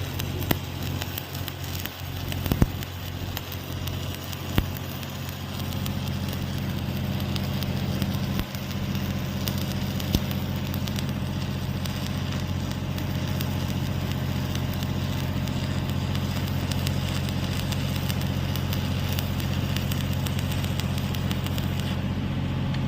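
Electric arc welding: a steady electrical hum from the welding machine under the crackle of the arc, with a few sharp clicks in the first seconds. The current has just been turned up by 20 amps.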